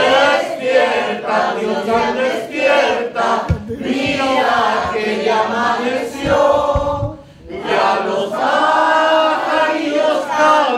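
A crowd of voices singing and chanting together loudly, with many pitches overlapping and some long held notes. There are a few low thumps in the middle.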